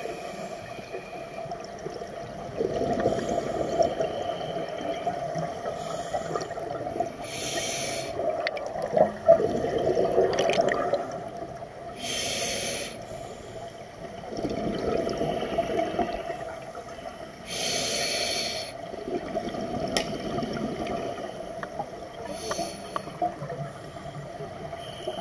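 Scuba diver breathing through a regulator underwater. A short hiss on each inhalation, about every five seconds, alternates with a longer rush of exhaled bubbles.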